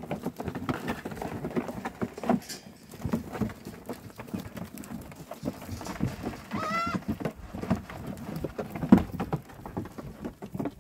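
Goats feeding from plastic feed pans: irregular knocks and clatter of muzzles and feed against the pans and shuffling hooves, with one short high goat bleat about two-thirds of the way through.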